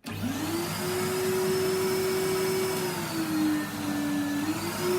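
Henry canister vacuum cleaner switched on, its motor whine rising quickly as it spins up and then running steadily with a rushing air sound. Its pitch sags for a second or so past the middle and then comes back up.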